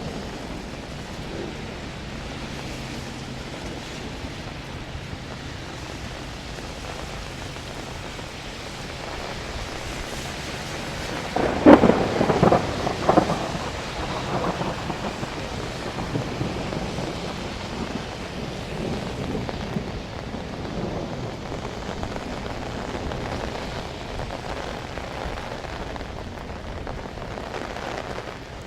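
Steady rain falling, with a sharp, crackling thunderclap about twelve seconds in that trails off over a few seconds.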